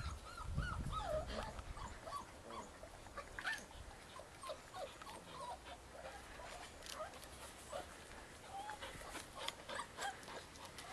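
Bearded Collie puppies whimpering and squeaking: many short, high whines that bend up and down in pitch, with scattered clicks among them.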